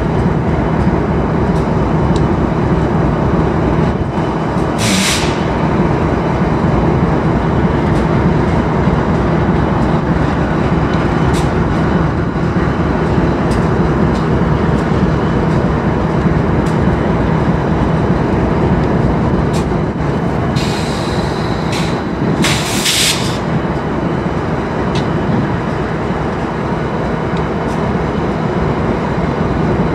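Idling BNSF diesel freight locomotives: a steady low diesel rumble. Short hisses of air come once about five seconds in and twice more a little past twenty seconds in.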